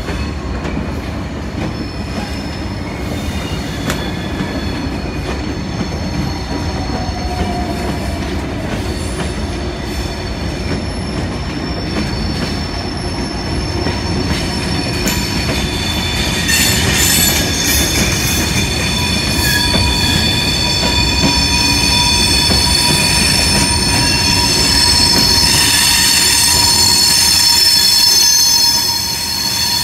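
Open box freight wagons rolling past on a curve: a steady rumble of wheels on rail, with high-pitched wheel squeal that comes in about halfway through and grows louder.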